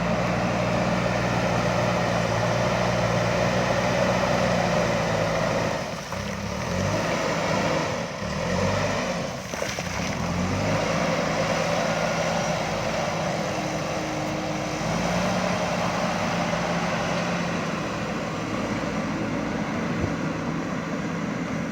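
JCB backhoe loader's diesel engine running steadily, its note dipping and rising for a few seconds near the middle as the machine works, then settling back to a steady run.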